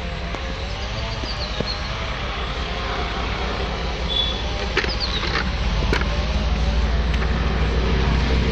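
Diesel locomotive approaching with its engine drone growing steadily louder, and a few sharp clicks about halfway through.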